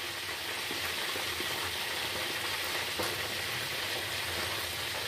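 A large stainless-steel pot of duck broth at a rolling boil, bubbling steadily. There is a light splash about three seconds in as duck giblets are tipped in from a plastic basket.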